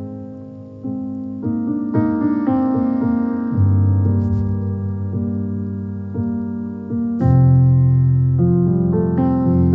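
Background piano music: notes and chords struck and left to ring.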